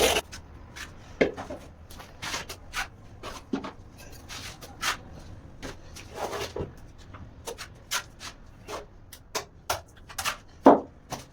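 Irregular scraping and clicking of tiling work: tools rubbing and knocking against tiles and mortar, with a few longer scrapes and a sharper knock near the end.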